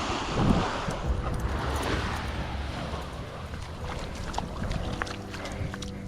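Wind buffeting the microphone with a low rumble, over waves breaking on the beach.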